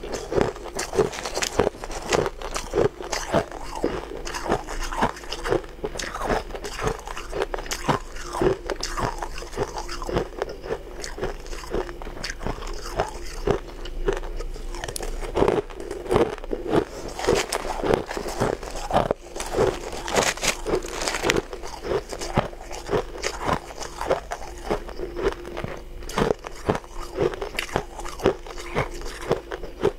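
Close-miked crunching of shaved ice as it is bitten and chewed and scooped with a metal spoon: dense, sharp crunches, a few every second.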